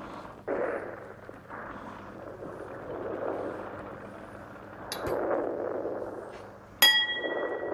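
Several swells of breathy rushing noise, then a sharp ringing clink of crockery near the end.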